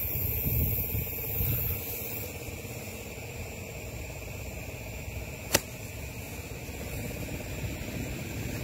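Low rumbling handling and movement noise on the microphone as someone pushes through tall grass, over a steady faint background hum. One sharp click about five and a half seconds in.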